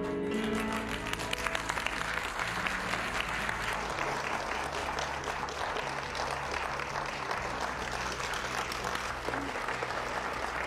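Large audience applauding steadily, with music playing underneath.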